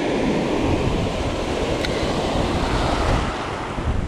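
Ocean surf breaking and foaming white water washing around the wader's position, with wind buffeting the microphone in low gusts. A single small click about two seconds in.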